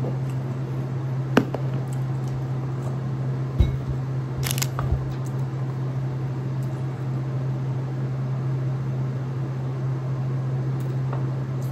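A steady low hum, with a sharp click about a second and a half in, a thump a couple of seconds later and a brief rustle soon after.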